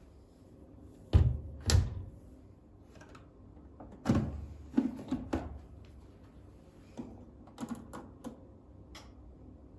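A series of knocks and thumps from household things being handled and set down. The two loudest come a little after a second in, a cluster follows around four to five seconds in, and lighter taps come near the end.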